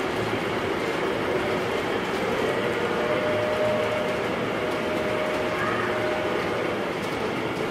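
G-scale model double-stack container train rolling past on its track: a steady running noise of wheels and motors, with a faint held whine for a few seconds in the middle.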